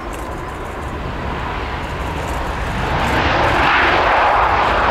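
Boeing 787-9 jet engines on the landing roll just after the nose wheel comes down: a steady rushing roar that grows louder, swelling strongly about three seconds in.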